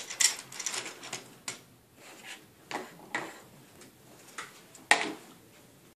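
Plastic and metal parts of a car satellite navigation unit being handled on a worktop as its inner assembly is worked out of the tight back cover: a series of clicks, scrapes and knocks, the loudest about five seconds in.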